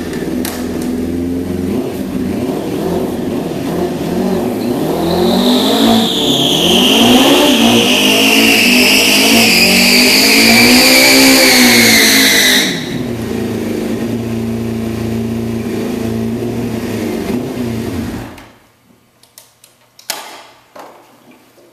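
Kawasaki ZZR600's inline-four engine revving in a stationary burnout: the spinning rear tyre gives a loud squeal that slides down in pitch for about seven seconds and then stops abruptly. The engine then idles, is switched off about eighteen seconds in, and a few light knocks follow.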